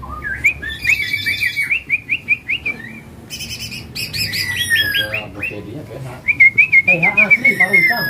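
Caged greater green leafbird (cucak ijo) in full contest-ready song: a fast run of chattering trilled notes and sweeping whistles, pausing about midway and starting a second burst near the end.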